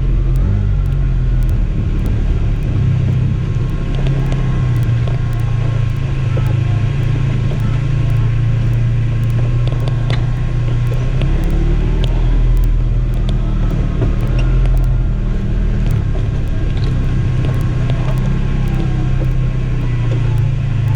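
2011 Polaris RZR 900 XP side-by-side's parallel-twin engine running steadily at an even pitch, with light clicks and rattles over the low drone.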